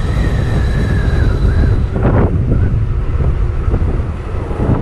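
Wind buffeting the microphone of a moving motorcycle as a loud, steady low rumble, with the bike's engine running beneath it as the rider slows down.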